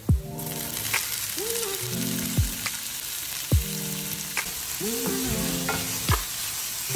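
Diced carrots and bell peppers sizzling as they fry in a pan with onion and garlic, stirred with a wooden spoon, over background music with a deep bass-drum beat.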